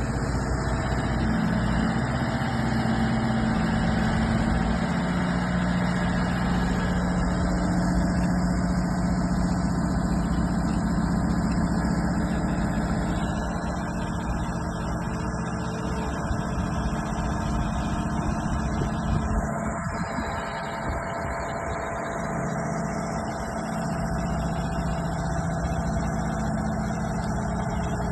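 Heavy machine's engine running steadily, its pitch shifting slightly up and down, somewhat quieter through the middle stretch.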